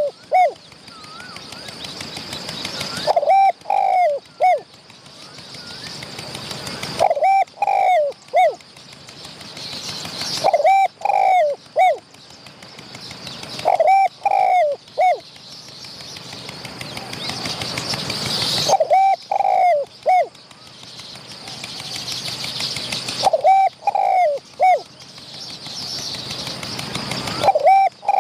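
Spotted doves cooing in the decoy-trapping duel: about seven short three- to four-note coo phrases, one every three to five seconds, with a hiss that builds up between phrases.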